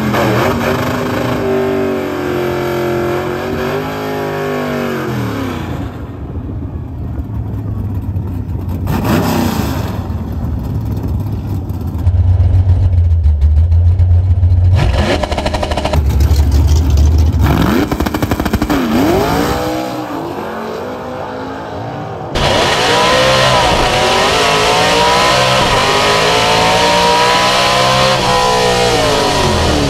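Drag race car engine revving hard over several short cuts, its pitch climbing and dropping again and again. The last part is a full-throttle run, the pitch rising in steps through the gear changes and falling away near the end.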